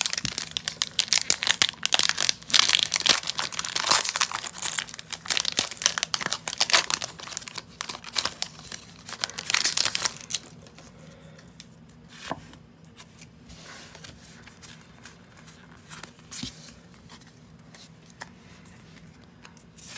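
Foil Pokémon booster pack wrapper being torn open and crinkled in the hands: dense crackling for about ten seconds. After that come softer rustles and clicks as the cards are drawn out and handled.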